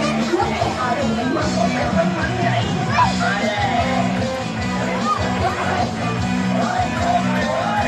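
Loud music with a repeating bass and chord pattern, with voices over it.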